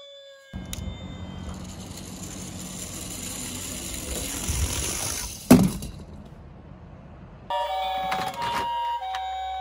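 A toy siren's falling wail dies away, then a steady whirring rumble of toy minicars rolling on a hard surface builds for about five seconds and ends in a sharp knock. Near the end a toy's electronic two-tone ambulance siren starts, swapping between a high and a lower note, with a few clicks.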